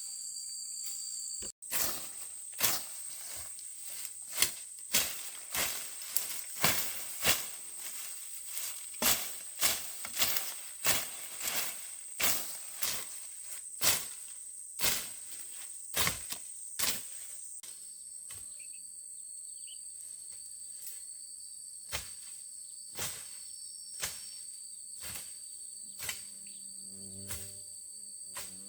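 Steady high-pitched drone of insects, crickets or cicadas. Over it comes a run of sharp knocks, about one or two a second, which thin out to about one a second after the middle.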